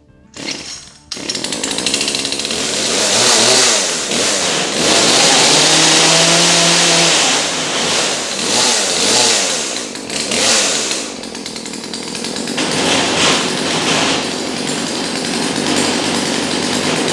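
Small two-stroke chainsaw engine being pull-started. It catches about a second in and keeps running, revving up and falling back several times. It starts readily on fresh fuel after four years of dry storage.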